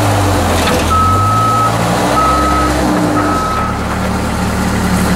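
Vehicle backup alarm beeping three times, about a second apart, over a running engine whose note shifts about three and a half seconds in.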